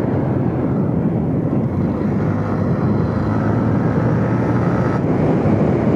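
Yamaha Sniper 150's single-cylinder four-stroke engine running steadily at cruising speed, mixed with wind and road noise.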